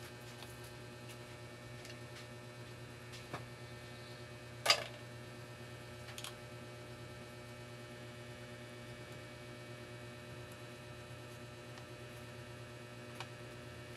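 Steady low electrical hum, with a few small clicks and taps from laptop parts and screws being handled. The loudest is a sharp click about five seconds in.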